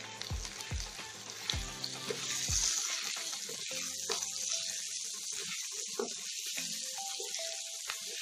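Chopped onions and carrots sizzling in oil in a pan while a wooden spatula stirs them, with scrapes and knocks of the spatula against the pan. Background music with a low beat plays underneath, and its beat stops about a third of the way in.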